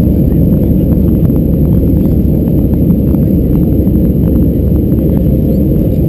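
Cabin noise of an Airbus A319-112 climbing out after takeoff: a loud, steady low rumble of its CFM56 engines and the airflow, heard from a window seat by the wing, with many faint, irregular ticks and rattles over it.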